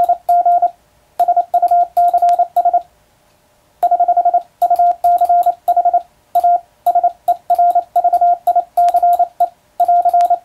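Morse code sent with an electronic keyer: a single steady tone keyed into quick, evenly timed dots and dashes, with two longer pauses about one and three seconds in. Faint clicks mark many of the keyed elements.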